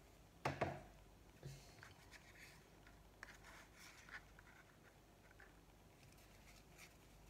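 Oracle cards being handled and drawn from the deck: a couple of sharp taps about half a second in, then faint scattered rustles of card on card.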